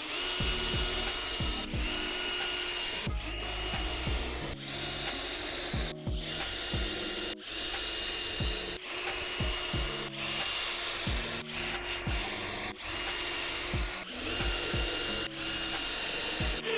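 A power tool running with a steady high whine and a grinding, rubbing hiss, broken up by short gaps about every second and a half. Background music with a beat plays under it.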